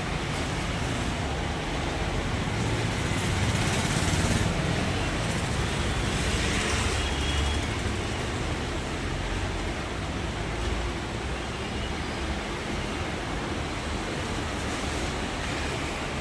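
Steady rumble and hiss of background noise like road traffic, swelling a little a few seconds in.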